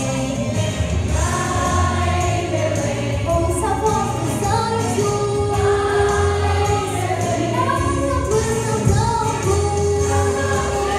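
Mixed church choir of men's, women's and children's voices singing a Christmas cantata piece together, with long held notes.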